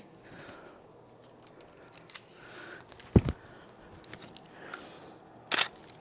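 DSLR shutter firing once, a sharp double click a little over three seconds in, from a Canon 5D Mark III. A brief rustle follows near the end.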